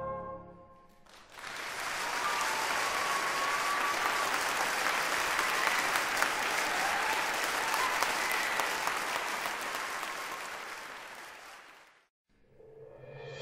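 Audience applauding, swelling in about a second in and fading away near the end.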